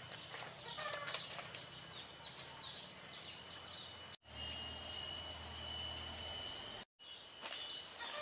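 Outdoor ambience of birds calling and chirping over a steady high insect whine. The sound cuts out abruptly twice. Between the cuts it changes to a steadier insect whine over a low hum.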